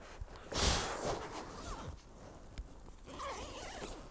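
Nylon hammock fabric and mesh bug net rustling as they are handled and pulled down, with one louder zip-like rasp about half a second in.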